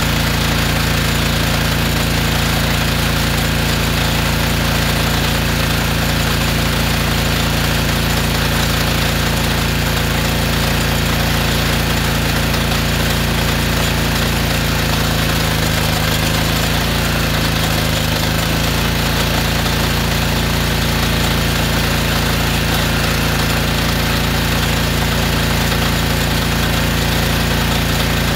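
Honda gas engine of a DeWalt pressure washer running steadily under load, driving a hydro-jetter hose that is clearing buildup from a kitchen drain line. The engine note wavers briefly twice about halfway through.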